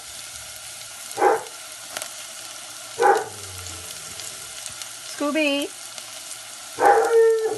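Chopped onion with freshly added minced ginger and garlic sizzling steadily in hot oil in a pot. A dog barks sharply twice, about one and three seconds in, louder than the frying.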